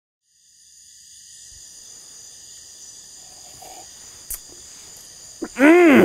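Steady, high-pitched cricket-chorus night ambience that fades in after a moment of silence. Near the end a voice makes a short, loud sound that rises and falls in pitch.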